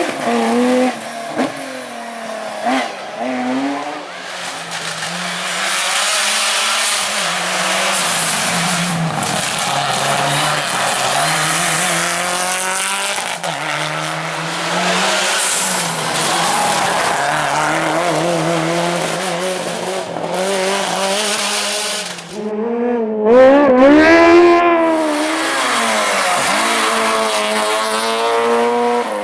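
Racing cars on a hillclimb course, engines revving hard and the pitch climbing and dropping as they accelerate and shift, with tyre squeal. The loudest moment comes about two-thirds of the way in, as a car's engine note swells past close by.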